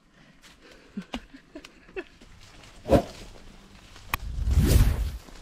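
Footsteps rustling through dry leaf litter and twigs, with scattered small clicks. A short sharp sound comes about three seconds in, and a loud rush of noise about a second long comes near the end.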